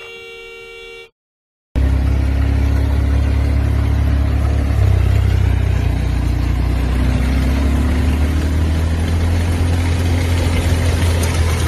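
A car horn held steadily, cut off about a second in. After a brief gap comes a loud, steady low rumble with a hiss over it, lasting to the end.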